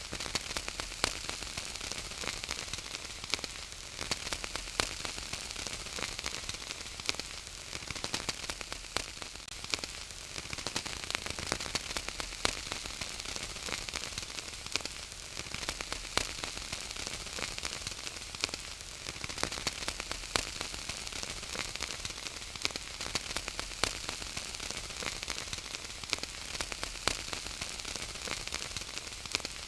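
Wood fire burning in a fireplace, crackling and popping over a steady hiss.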